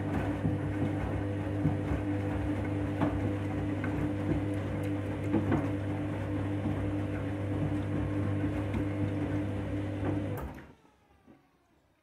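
Washing machine motor turning the drum during the wash: a steady hum with scattered knocks, which stops abruptly about ten and a half seconds in.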